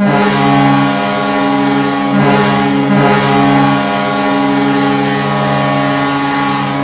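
Vancouver Canucks goal horn sounding one long, loud, steady blast of several deep tones at once, starting abruptly: the signal of a goal scored.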